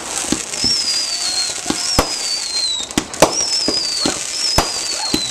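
Fireworks going off in rapid succession: sharp bangs about twice a second, with repeated high whistles that fall in pitch.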